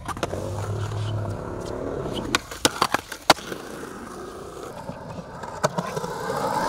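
Skateboard wheels rolling on concrete, with a cluster of sharp clacks of board and trucks hitting the concrete about two and a half to three and a half seconds in, and another single clack near the end.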